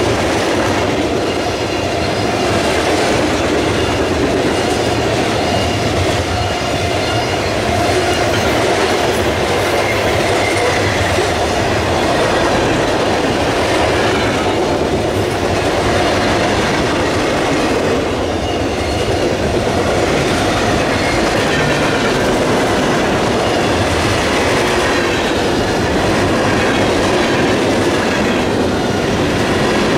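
Mixed freight train's cars rolling steadily past, their steel wheels running on the rails.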